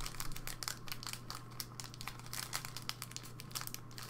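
Trading-card pack wrapper being torn open and crinkled by gloved hands: a dense run of irregular crackles over a steady low hum.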